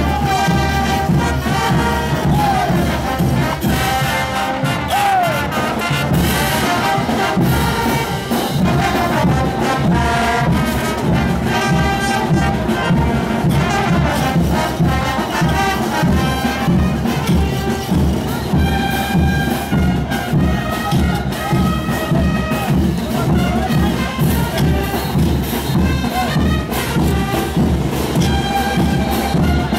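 Brass band playing lively dance music with a steady beat, accompanying the street parade's dancers.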